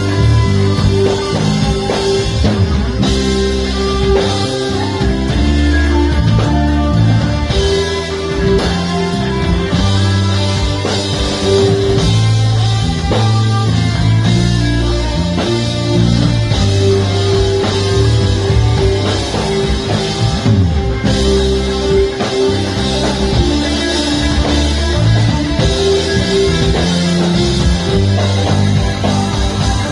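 Rock music with guitar and drum kit, played without singing.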